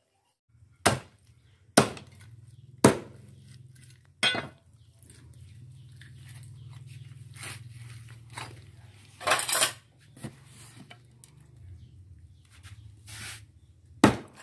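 A knife chopping through raw duck onto a thick wooden chopping block: four sharp chops about a second apart near the start, then a few scattered knocks and clatters later, over a faint low hum.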